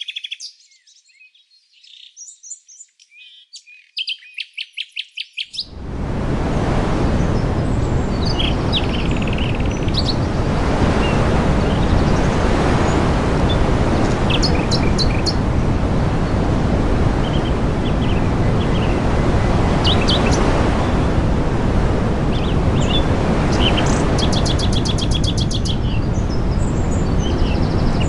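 Songbirds chirping, with a fast trill about four seconds in. About five seconds in, a loud steady rushing noise starts and covers everything, with bird chirps still heard over it, until it fades out near the end.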